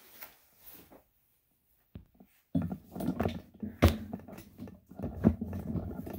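Handling noise as the recording phone is picked up and carried: quiet for the first couple of seconds, then rustling broken by several sharp knocks and clunks.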